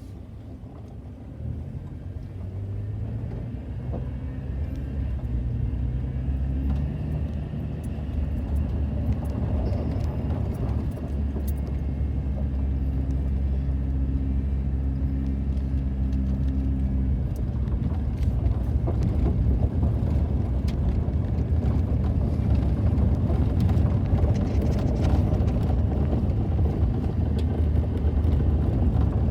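A car's engine and road noise while driving, a low steady hum that grows louder over the first several seconds and then holds steady.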